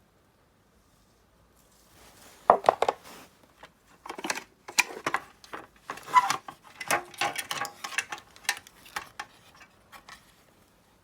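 Irregular clicking, knocking and clattering of small hard objects being handled, starting about two seconds in and dying away near the end.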